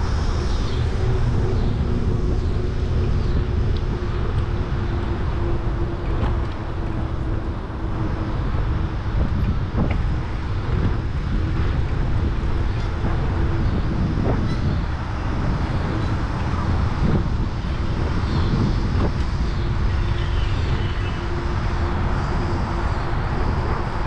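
Steady vehicle noise: a continuous low rumble with a steady hum, unchanging throughout.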